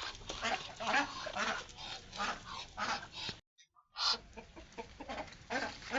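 Free-range village chickens and ducks calling while feeding: many short overlapping clucks and quacks, with a brief break a little past halfway.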